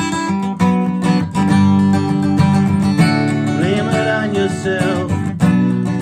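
Acoustic guitar strumming chords in a folk song, with a voice singing from about halfway through.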